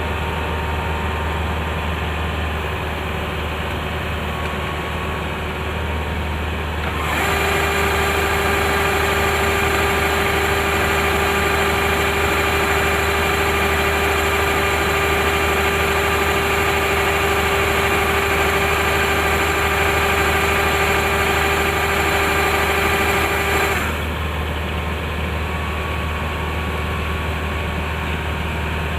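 Kubota rice combine harvester's engine running steadily. About seven seconds in, a louder, higher whine with a steady tone joins the hum and holds until a few seconds before the end, when it drops back to the lower engine sound.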